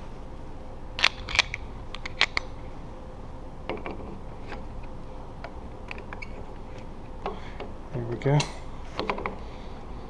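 Screwdriver backing out the mounting screws of a sliding patio door's keyed lock: a scatter of sharp metallic clicks and taps, the loudest a little over a second in and around two seconds in.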